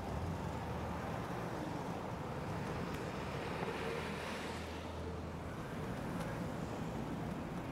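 Steady road traffic on a multi-lane city avenue: cars passing with tyre and engine noise. A nearby truck adds a low engine hum that swells in the middle and fades out about five seconds in.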